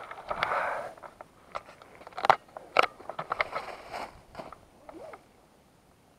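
Irregular clicks, crackles and scraping knocks, with two sharp loud clicks close together between two and three seconds in; the noise fades to a faint hiss after about five seconds.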